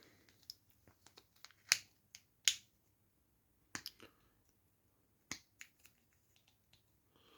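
A scattering of short, sharp clicks and taps from objects being handled, with the two loudest coming close together about two seconds in. They are faint, with quiet between them.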